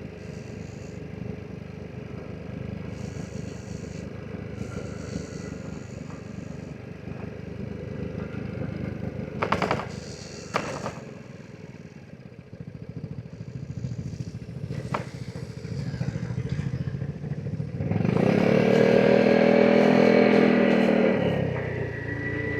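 Vespa GTS 300 SuperSport scooter's single-cylinder four-stroke engine running at riding speed, with two knocks about ten seconds in. About eighteen seconds in, the engine pulls under throttle for about three seconds, louder and rising slightly in pitch, then eases back.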